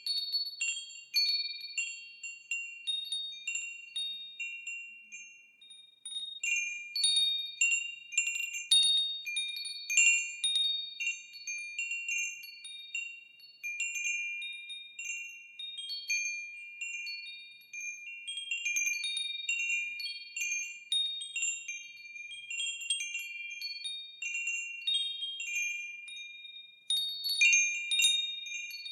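Wind chimes ringing, with high notes struck at irregular moments, often several together, each dying away. The strikes thin out into a brief lull about six seconds in, then pick up again, with a busy cluster near the end.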